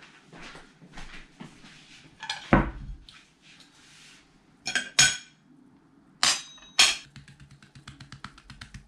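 A ceramic plate set down on a glass tabletop with a knock, then a knife and fork clinking sharply on the glass several times, the last two with a brief metallic ring. Near the end comes a fast run of faint ticks as a spice jar is worked over the plate.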